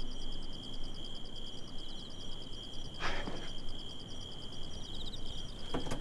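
Night-time cricket chorus: a steady high trill with a fast pulsing edge. A short, soft sound breaks in about halfway through.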